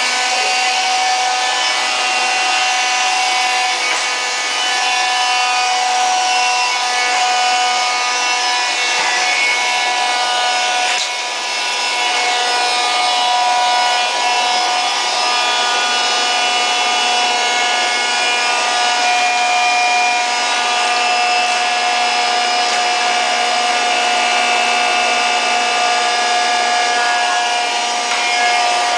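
Swiffer Vac cordless stick vacuum running, its small motor giving a steady whine made of several held tones over a rushing hiss, with a brief dip about eleven seconds in.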